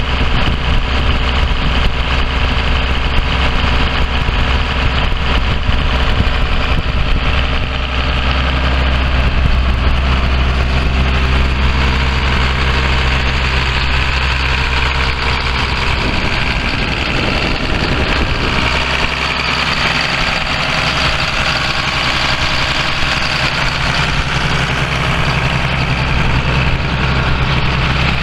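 John Deere 7800 tractor's six-cylinder diesel engine (John Deere 6076) running steadily at idle. Its note changes about two-thirds of the way through.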